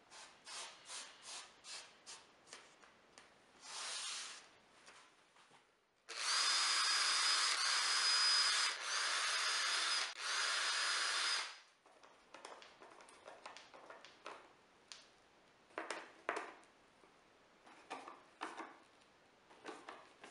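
Cordless drill running into plywood in three steady whining runs of a couple of seconds each, near the middle. Before and after it come light clicks and knocks of plywood parts and screws being handled.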